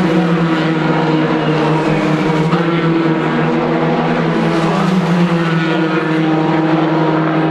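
Formula 3 single-seaters with two-litre four-cylinder racing engines running at high revs as they pass through a corner one after another. The engine note is loud and steady.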